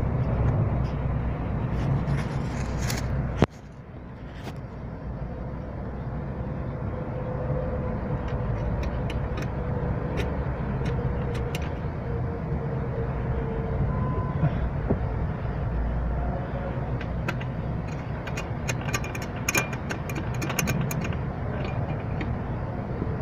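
Light metallic clicks and taps of hand work refitting a screw at a car's clutch pedal bracket under the dashboard, over a steady low rumble; the level drops suddenly about three seconds in.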